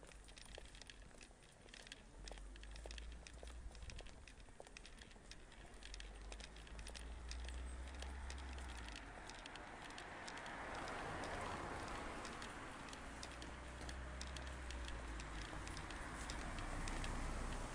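Many overlapping shoe steps tapping on a paved road as a group walks in procession, with wind rumbling on the microphone. A broad rushing noise swells up in the second half.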